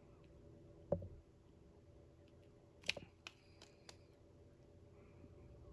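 Faint clicks and taps of small tools against the phone during soldering, two sharper ones about a second in and near three seconds, then a few lighter ticks, over a faint steady hum.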